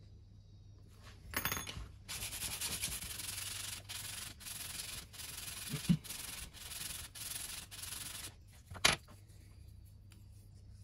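A brass pen tube rubbed back and forth by hand on a sheet of sandpaper: a scratchy rasp in even strokes about every two-thirds of a second, lasting some six seconds. A short sharp knock comes about a second and a half in, and a louder one near the end.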